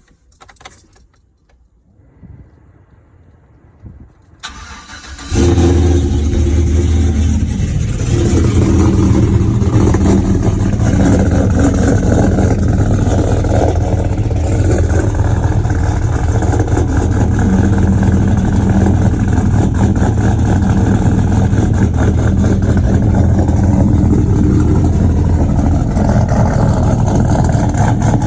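GM 5.3-litre V8 with a custom-ground 230/238 camshaft cold-starting: it cranks briefly about four seconds in, fires and settles into a loud, steady idle.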